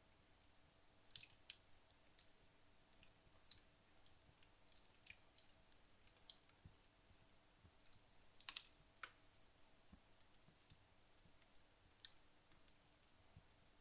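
Wood logs burning in a fireplace: sparse, irregular sharp crackles and pops over a faint hiss, with a louder pop about a second in and a quick cluster of pops at around eight and a half seconds.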